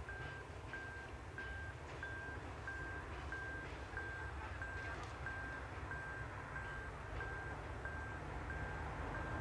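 An electronic warning beeper sounds one steady high beep about every 0.6 s, over the low rumble of a slowly approaching rack railcar.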